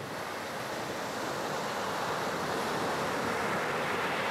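Ocean surf rushing, an even wash of waves that swells slowly.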